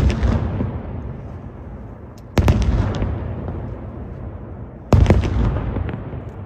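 Aerial firework shells bursting: three loud booms about two and a half seconds apart, each followed by a long rumbling echo that fades away.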